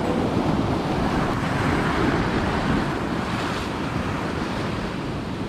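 Sea waves washing and breaking against a rocky shore, a steady rush of surf, with wind buffeting the microphone.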